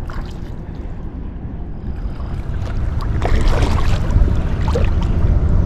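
Wind rumbling on the microphone of a bow-mounted kayak camera, over water lapping at the hull, with kayak paddle strokes splashing between about three and four seconds in.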